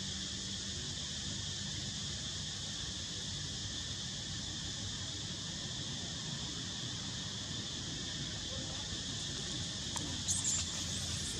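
Steady high insect chorus over a low rumble. About ten seconds in, a brief high-pitched squeal from a baby macaque.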